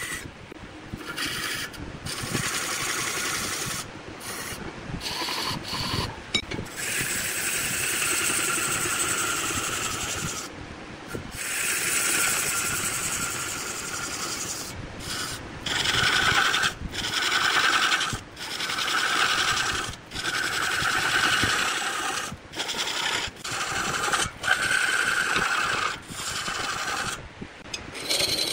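A turning tool scraping against wood spinning on a lathe, a rasping noise. It runs in longer stretches at first, then from about halfway in comes in short passes roughly a second apart with brief breaks.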